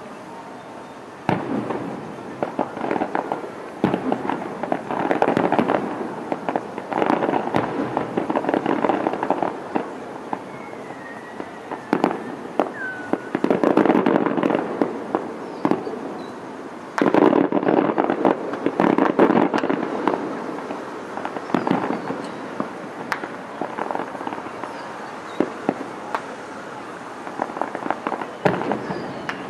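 Aerial fireworks display: shells bursting in quick succession, with dense crackling and popping that comes in waves and is loudest just past the middle.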